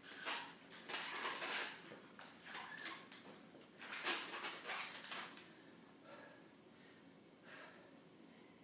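Heavy, uneven breathing: several loud breaths in the first five seconds, then quieter. It comes from a person winded by the effort of standing and walking in full HKAFO leg braces.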